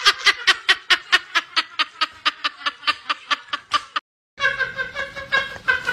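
A person laughing in a rapid run of high giggling pulses, about six a second, that slowly weaken. It cuts off suddenly about four seconds in, and after a short silence a different voice begins.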